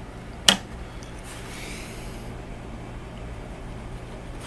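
A pencil works lightly on a primed fuselage hatch. There is one sharp tap about half a second in, then a faint soft scratch lasting about a second, over a steady low hum.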